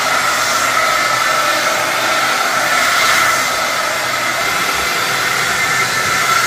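Hair dryer running steadily on wet hair, a loud rush of air with a steady high whine.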